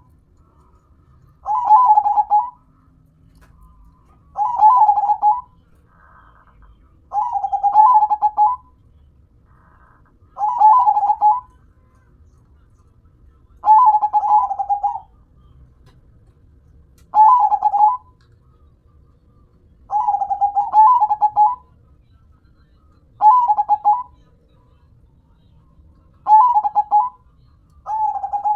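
Zebra dove (perkutut) cooing its song: a rhythmic phrase of about a second, repeated roughly every three seconds, about nine times.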